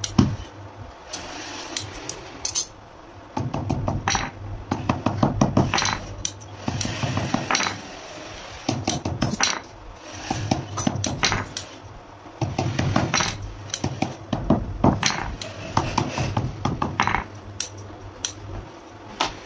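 Wooden mallet striking leather work gloves, in quick runs of sharp knocks with short pauses between them, over a steady low hum.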